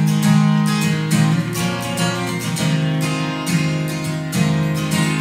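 Acoustic guitar strummed in a steady rhythm, its chords ringing on between the strokes.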